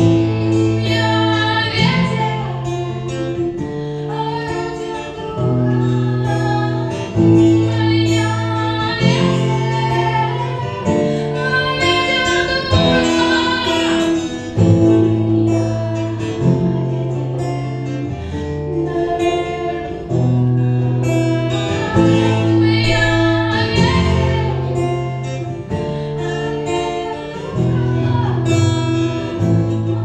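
A woman singing a Christian worship song in Russian into a microphone while playing an acoustic guitar, with chords changing every second or two under the sung melody.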